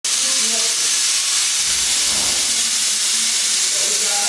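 A loud, steady hiss.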